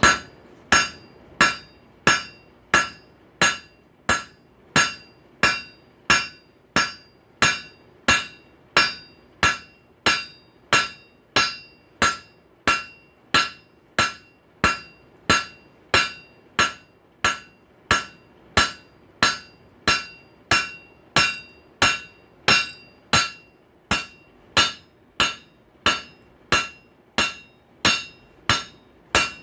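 Steady hand-hammer blows on an anvil, about three every two seconds, each with a short metallic ring, as a red-hot steel rail spike is forge-welded and flattened.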